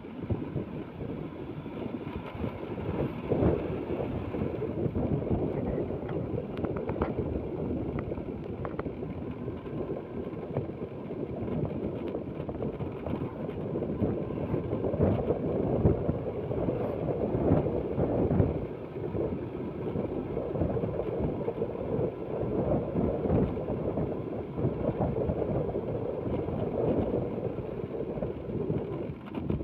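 Wind rushing and buffeting over the microphone of a moving motor scooter, with the scooter's running noise underneath.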